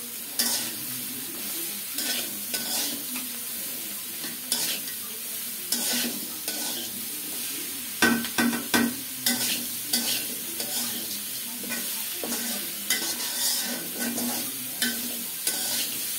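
Bitter gourd and carrot frying in a pan, a steady sizzle under irregular scrapes and knocks of a spatula stirring the vegetables.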